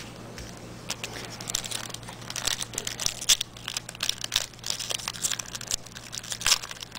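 Foil trading-card pack wrappers crinkling and being torn open by hand, a dense run of crackles starting about a second in.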